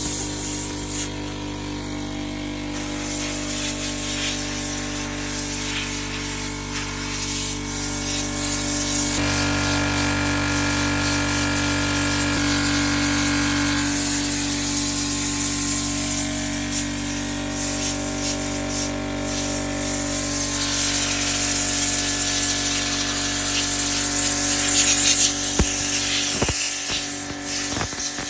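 Compressed air blowing from an air nozzle against a reusable furnace filter, a steady loud hiss that rises and falls in strength, over a steady hum with several tones that shift a few times.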